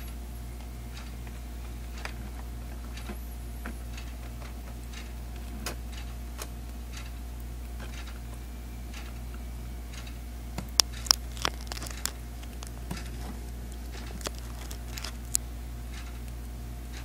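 A pet crab's claws clicking and scraping as it feeds, in scattered small clicks and crackles with a short run of louder clicks a little past the middle, over a steady low hum.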